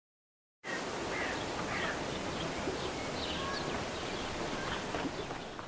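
Outdoor ambience of several birds chirping in short calls over a steady background noise, starting suddenly about half a second in and cutting off abruptly at the end.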